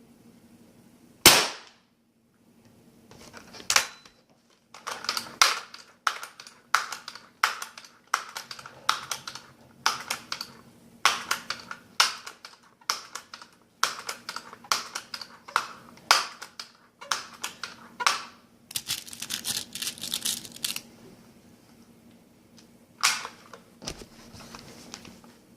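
Daisy PowerLine 880 multi-pump air rifle firing a .177 pellet with one sharp crack about a second in. It is then pumped over and over, a steady run of clacking strokes lasting about thirteen seconds, with a short hiss after them and one more click near the end.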